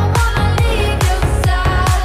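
Electronic dance music with a steady, fast, driving beat.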